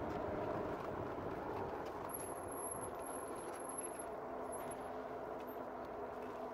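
Wind noise on the microphone of a moving Rad Power Bikes RadMini Step Thru electric bike, an even rushing with a faint steady hum beneath it that weakens as the bike slows.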